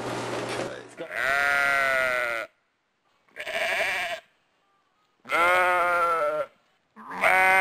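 Bleating, sheep-like: after about a second of steady room hum, four drawn-out bleats of about a second each, separated by dead silence.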